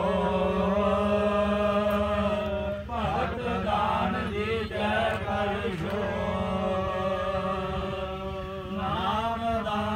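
Sikh scripture chanted by male voices, with long held notes that later waver and bend in pitch.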